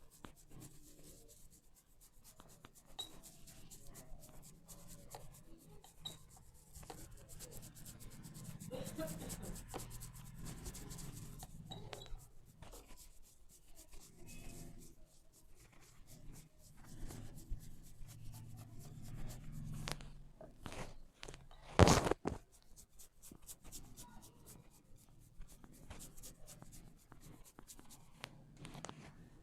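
Hands rubbing and twisting hair against the scalp in a hair-cracking massage, giving a steady run of scratchy rubbing with many small crackles and clicks. One short, much louder crack stands out late on.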